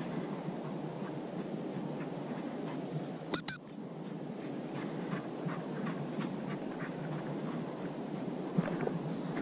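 Gundog whistle blown twice, two short shrill pips about three and a half seconds in, over a steady rustle of wind and walking through dry tussock grass.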